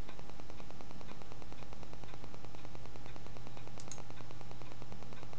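Steady low electrical hum with even hiss, the noise floor of a desktop recording setup. There are two faint ticks close together about four seconds in.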